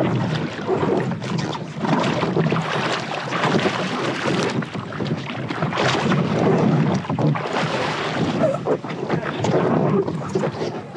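Lake water sloshing and splashing against a stand-up paddleboard right at a water-level action camera, loud and irregular, with wind buffeting the microphone.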